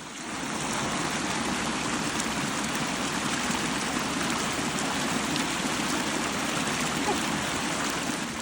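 Water rushing steadily down a rocky stream channel, a dense, even rush that sets in about half a second in and cuts off abruptly at the end.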